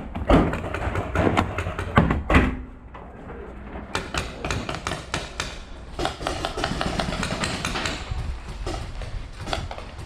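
Paintball markers firing: quick runs of sharp pops, loudest in the first two seconds, dropping off briefly, then starting up again about four seconds in.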